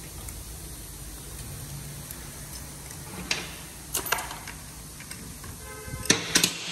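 Metal hand tools clinking against the steel workbench and the aluminium cylinder head: a few sharp taps in the middle, then a cluster of louder clinks with a brief metallic ring near the end, over a low steady hum.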